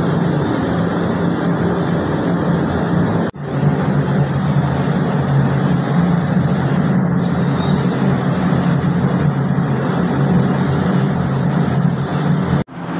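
A machine running steadily with a low hum, broken by two sudden brief dropouts, about a third of the way in and near the end.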